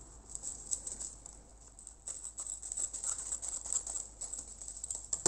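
Scissors snipping open plastic packaging, with irregular clicks and crinkling of the plastic.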